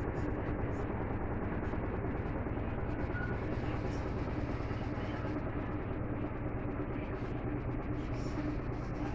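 Electrolux LT12F washing machine spinning with a full load during its intermediate spin before the first rinse: a steady, even running sound with a low hum.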